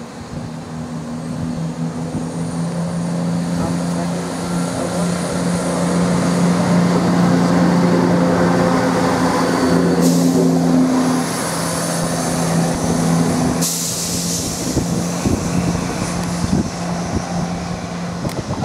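Class 168 Clubman diesel multiple unit departing under power: its underfloor diesel engines run loud and steady, building over the first several seconds as the train accelerates away. Sudden hisses of air come about ten and fourteen seconds in.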